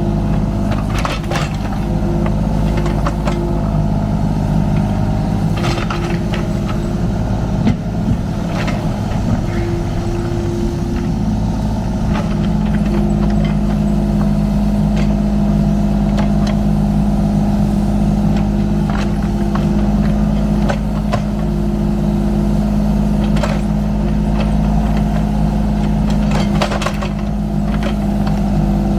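Kubota U35-4 mini excavator's diesel engine running steadily under work, with scattered knocks as the bucket knocks down dirt piles and moves rocks.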